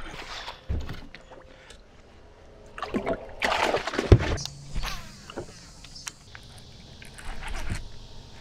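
Knocks and handling noise in a boat. The loudest is a sharp knock about four seconds in, as a plastic boat cooler lid is handled.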